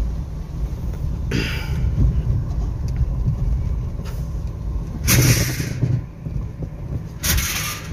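Suzuki XL7's 1.5-litre four-cylinder engine running with a steady low rumble as the car sets off, with three short bursts of hiss, the loudest about five seconds in.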